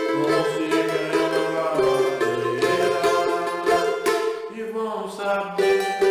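Cavaquinho playing a samba, strummed chords in a quick rhythm, over lower bass notes from another instrument.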